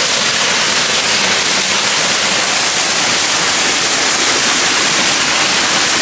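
Rain-swollen stream rushing over rocks: a loud, steady rush of water.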